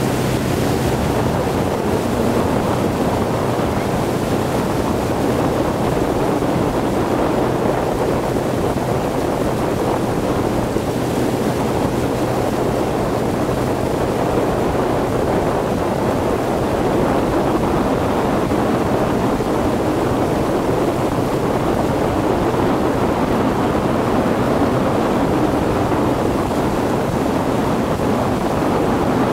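Ski boat under way at steady speed: its engine hum under the rush of water and barefoot spray, with wind buffeting the microphone.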